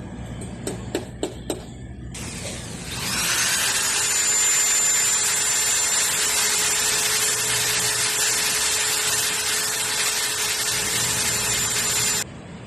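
A few sharp clicks, then an electric drill starts, winds up to a steady whine and runs for about nine seconds before cutting off abruptly.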